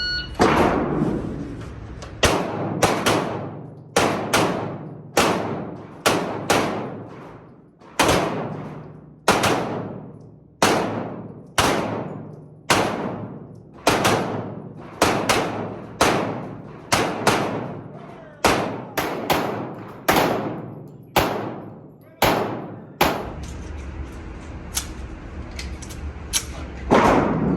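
Shot-timer start beep, then rapid pistol fire: about thirty shots over some twenty seconds, many in quick pairs, each followed by a long echo.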